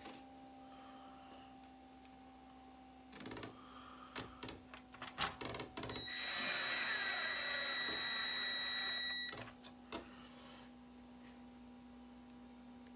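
Electric screwdriver running for about three seconds, driving a screw into the RC chassis, with a steady whine that cuts off sharply. Before it come a few clicks and knocks of small parts being handled.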